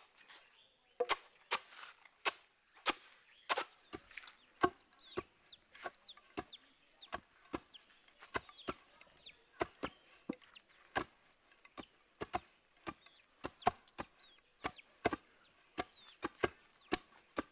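Irregular sharp knocks, about two or three a second, with short high chirps falling in pitch through the middle.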